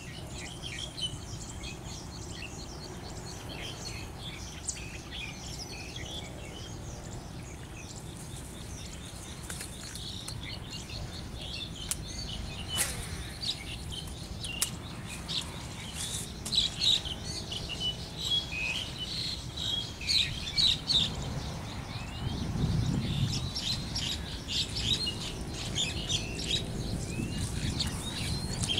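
Small birds chirping, many short calls that grow busier after the middle, over a steady low rumble that swells for a couple of seconds near the end.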